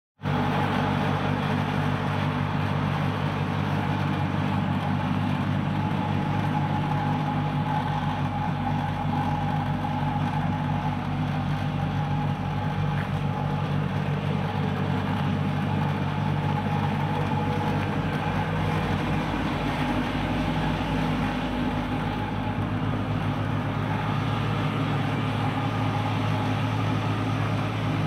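Audi A6 4.2's V8 engine idling steadily, a low even exhaust note with no revving.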